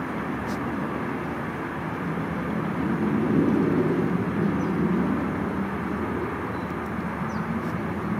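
Steady low rumble of distant vehicle noise, swelling slightly about three seconds in, with a few faint, brief high chirps of small birds.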